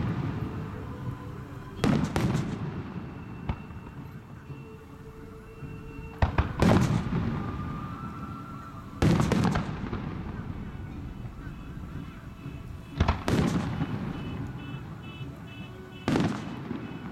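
Aerial firework shells bursting: about five loud booms spaced three to four seconds apart, each trailing off in a rumble, with a smaller pop between the first two.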